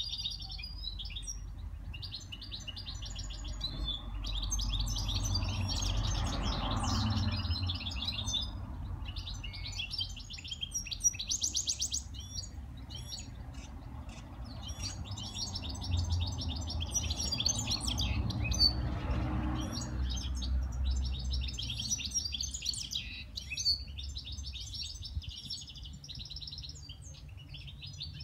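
A small caged songbird singing a long, fast twittering song in phrases of several seconds with short breaks, over a low rumble.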